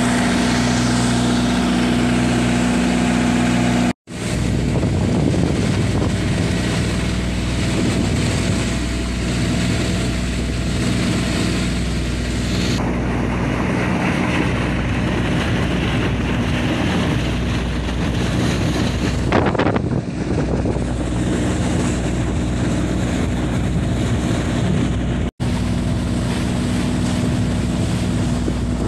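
Mitsubishi 4DR5 four-cylinder diesel engine of a flatboat running steadily under way, driving the propeller shaft, mixed with wind on the microphone and the rush of water. The sound drops out for a moment twice: once about four seconds in and once near the end.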